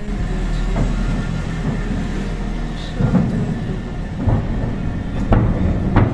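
Aerial fireworks shells bursting in the distance: several deep booms about a second apart over a steady low rumble, the loudest near the end.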